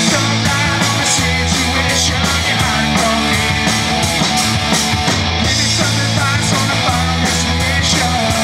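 Live rock band playing: two electric guitars, bass guitar and a drum kit.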